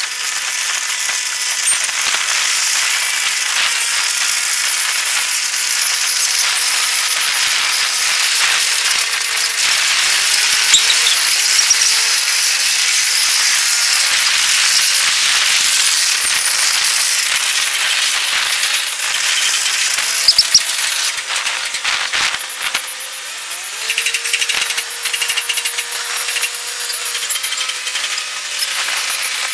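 Zoomlion crawler crane driving on its steel tracks, its sound sped up eightfold into a continuous high clatter with almost no low end. Short pitched whines glide upward twice, about ten seconds in and again near the end.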